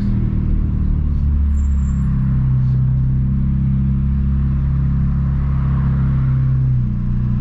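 VW Gol G2's 1.0 8V four-cylinder engine running through a straight pipe with a 4-inch HKS muffler, giving a steady low rumble. The engine note drops to a lower idle about a second in as the car coasts in neutral, then steps up a little near the end.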